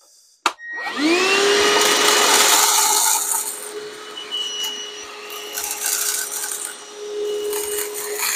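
Hercules 20V cordless half-gallon wet/dry vacuum switched on with a click, its motor rising in pitch to speed within about a second, then running with a steady whine. Dried corn kernels clatter loudly as they are sucked up through the nozzle, in one long stretch and then in shorter bursts.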